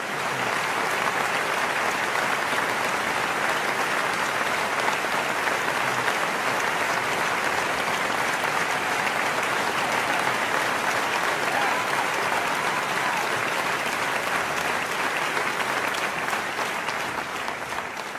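Crowd applause, a steady dense clapping that fades out near the end.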